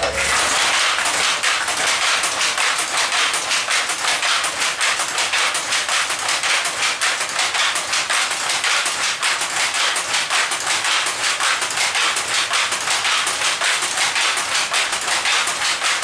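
Power loom weaving terry towel cloth. It starts up right at the beginning and runs at speed with a fast, even, rhythmic clatter of repeated sharp knocks.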